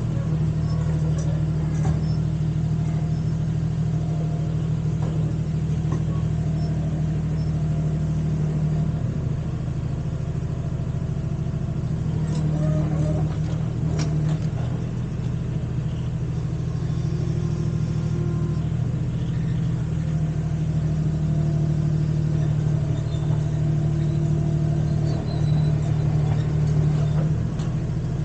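Mini excavator engine running steadily, its tone and loudness shifting a few times as the machine is worked, with a few faint clicks about halfway through.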